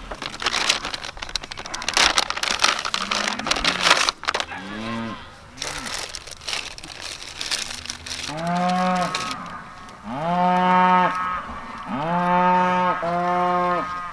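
Black Angus cattle mooing: a couple of short calls about halfway through, then several long moos in quick succession. The first few seconds hold a rustling, crackling noise.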